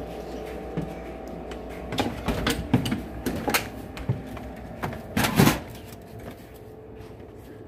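A house door and a glass storm door being opened and passed through: a series of sharp knocks and clatters, loudest a little past the middle, over a steady hum that fades near the end.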